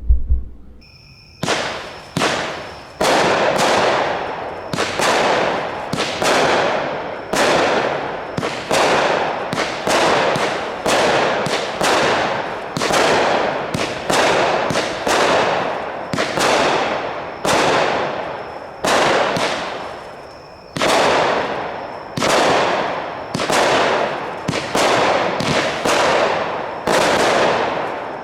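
Heavy Load (Sky King Fireworks) Chem Trails 200 g repeater cake with 25 shots of 0.8-inch tubes, firing. It gives a sharp report roughly once a second, and each bang trails off in a fading tail.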